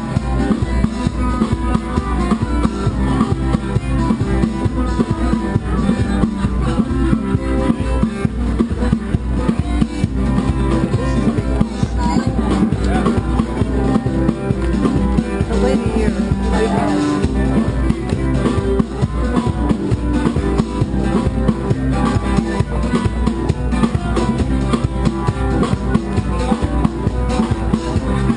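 A street band playing: a drum kit keeping a steady beat under guitar.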